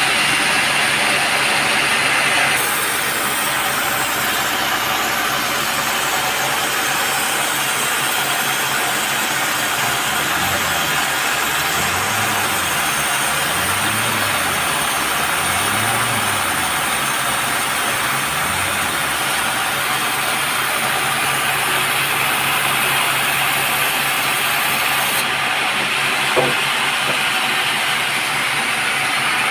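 Sawmill machinery running with a steady loud noise while cutting teak, with a low hum that rises and falls about five times in the middle and a single click near the end.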